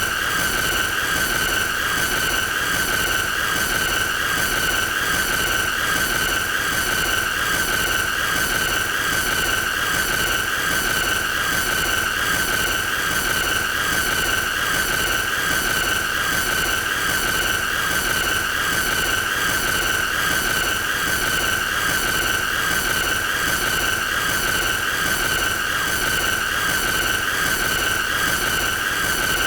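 A continuous, unchanging high-pitched squealing tone with a fast, even pulsing, held without any break: a looped annoying sound effect.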